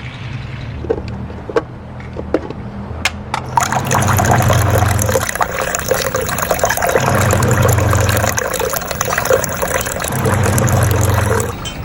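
Liquid gushing and splashing, starting a few seconds in and stopping suddenly near the end, over a low rumble that swells and fades three times. A few sharp clicks come before the gush.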